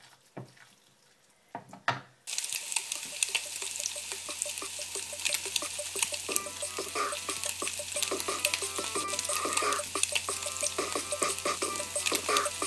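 Pork meatballs frying in hot oil in a pan, a dense sizzle full of crackles and pops from spitting fat. It starts suddenly about two seconds in, after a few soft taps, with a steady low hum under it.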